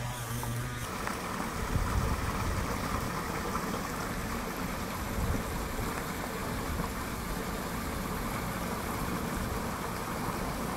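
Tobu 8000 series electric train running: a steady low rumble with even rail and running noise, taking over from a faint low hum about a second in.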